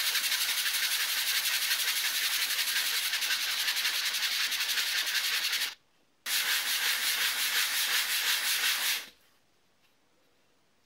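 Balsa wood block rubbed in circles on 120-grit wet-and-dry sandpaper over a glass board, lapping it flat: a steady, scratchy sanding rasp. It breaks off briefly about six seconds in, resumes, and stops about two seconds before the end.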